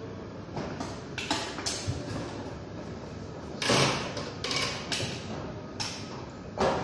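Metal chain on a manual chain hoist clanking and rattling in irregular knocks as it is pulled by hand, about ten clanks, the loudest a little over halfway through.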